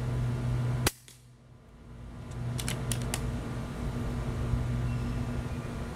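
A single sharp shot from a factory-stock FX Crown PCP air rifle firing a Hades pellet about a second in. A few quick light clicks follow a couple of seconds later, over a steady low hum.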